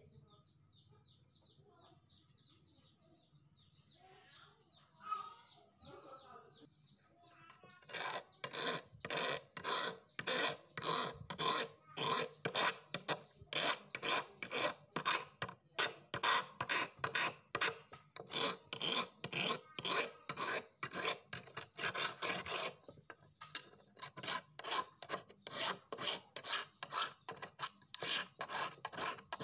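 Steel hand file rasping across the edge of a rusty old knife blade, in regular strokes about two a second that begin about eight seconds in and pause briefly near two-thirds of the way through. Before the filing there is only faint rubbing and a single knock.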